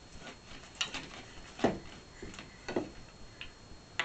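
Wooden bear toy being worked by a toddler's hands: a handful of light, irregular wooden clicks and knocks.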